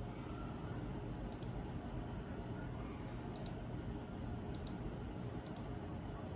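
A few short, faint clicks, mostly in close pairs, starting about a second in, over a steady low background hum.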